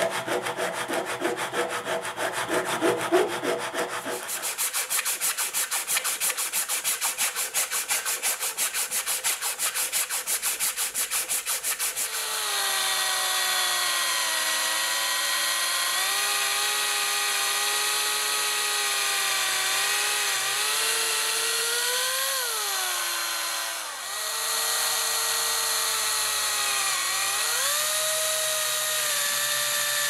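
Hand sanding with a grit-covered rod along the metal frame of a pocket knife: rough rubbing at first, then quick, even back-and-forth strokes. About twelve seconds in, a handheld electric drill starts boring a hole and runs steadily, its whine dropping in pitch as the bit bites and rising again, with a brief stop about halfway through.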